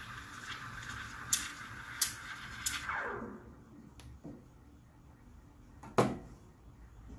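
Quick Mill Rubino steam wand hissing steadily in a milk pitcher, with a few sharp ticks. About three seconds in, the steam is shut off and the hiss falls in pitch and dies away. A single sharp knock follows near the end.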